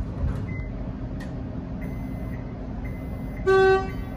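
X'Trapolis electric train standing at a platform with a steady low hum; about three and a half seconds in, a train horn gives one short, loud toot.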